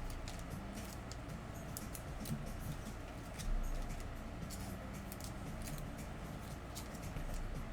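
Trading cards and foil card packs being handled: scattered light clicks and rustles over a low steady hum.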